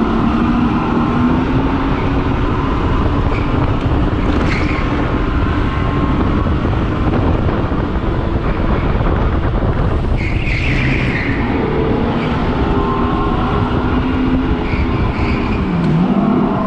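Electric go-kart's synthetic engine sound played through speakers in the kart's headrest, its pitch rising and falling with the throttle and dipping briefly near the end, heard over heavy rumble on the helmet-mounted camera's microphone.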